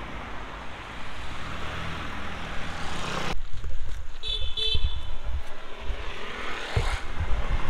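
Cars driving past on a road, an even rush of tyre and engine noise that changes abruptly about three seconds in. After that come irregular low thumps of wind buffeting the microphone, and a brief high-pitched beep about halfway through.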